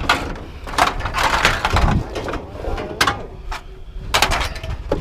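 Scrap being unloaded: a run of loud bangs and knocks with a rough crashing clatter about a second in.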